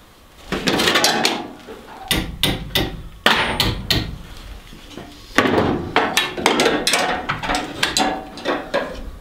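Sharp metallic knocks and clinks of hand tools working on engine parts, with a scraping shuffle about half a second in and quick runs of strikes about two seconds in and again from about five and a half seconds on.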